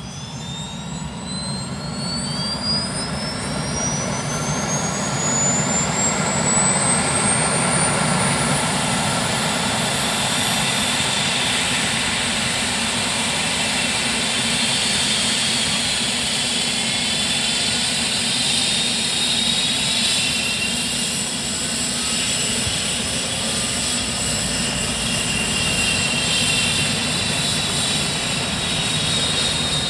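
Rescue helicopter's turbine engine starting up: a whine rises steadily in pitch over the first twelve seconds or so as the engine spools up. The running noise grows louder for the first few seconds, then holds steady.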